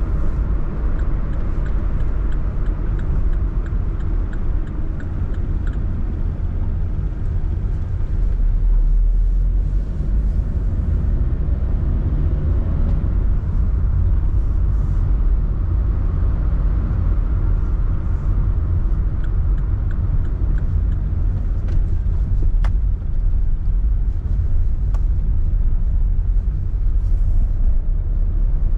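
Car driving along a road: a steady low rumble of engine and tyre noise, with one sharp click about two-thirds of the way through.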